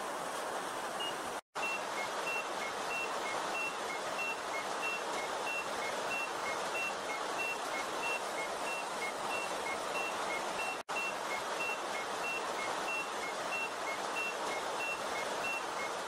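Steady rushing noise like static or rain, with a soft electronic beep repeating in an alternating high-low pattern, a high-low pair about every two-thirds of a second. The sound cuts out briefly twice.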